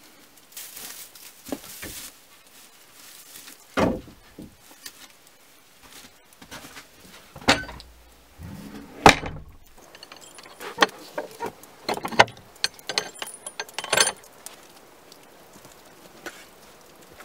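Wooden knocks, clicks and footsteps of someone moving about an old plank-built barn on boards and straw, with a short creak and one loud bang about nine seconds in, and a quick run of clicks and knocks after it.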